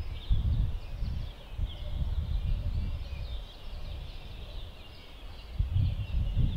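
Many small birds chirping all together in a dense, continuous chorus. Irregular gusts of wind rumble on the microphone, heaviest at the start and again near the end.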